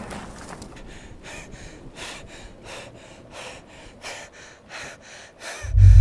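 A person panting hard, quick rhythmic breaths about three a second. Near the end a loud, deep bass tone cuts in.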